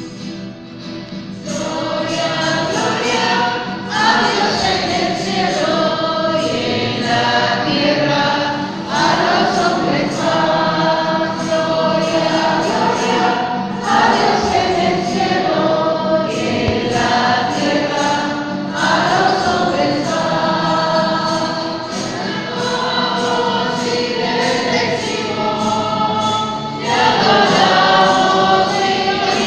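Background music: a choir singing a hymn in phrases a few seconds long, over a light steady beat, coming in fully about a second and a half in.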